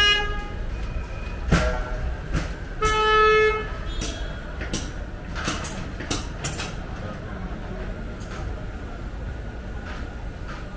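Busy shop ambience with irregular clicks and knocks of handling at the counter. A short horn-like toot sounds about three seconds in.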